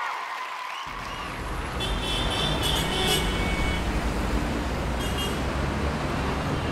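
Road traffic ambience: a low rumble of idling vehicles starts about a second in, with car horns tooting around two to three seconds in and briefly again near five seconds.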